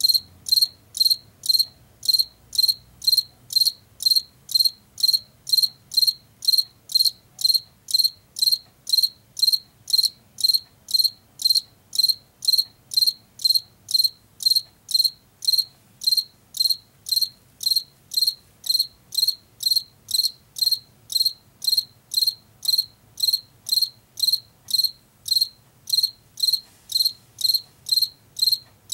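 Male field cricket calling: an even, unbroken series of short, high-pitched chirps, about two a second, made by rubbing its front wings together.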